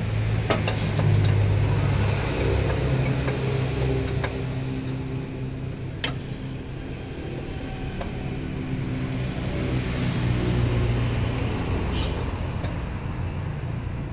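Mitsubishi PS100 truck's diesel engine running while being tuned, throttled up just after the start, settling back, then rising again near the end. A few short clicks sound over it.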